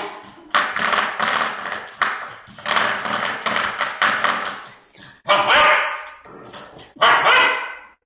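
Spring door stopper flicked by a greyhound puppy's paw, twanging about seven times, each twang starting sharply and ringing away within a second, mixed with the puppy's barks.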